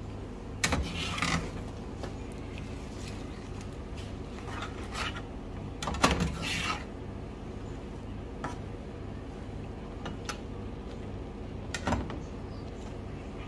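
Slotted spatula scraping and knocking against a nonstick frying pan as chunks of fried bread dumpling and eggs are stirred and turned. The loudest scrapes come about a second in, around six seconds in and near the end, over a steady low hum.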